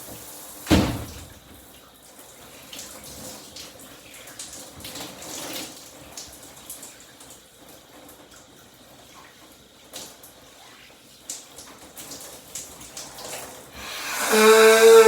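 Shower water running steadily over a person, with a sudden short blast about a second in. Near the end comes the loudest sound, a forceful honking nose blow with a steady pitch lasting about a second, from a badly stuffed-up nose.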